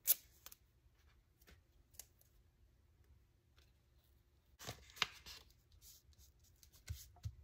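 Faint handling of paper and washi tape: a few soft taps and clicks, with a short rustle about five seconds in and a couple of soft taps near the end.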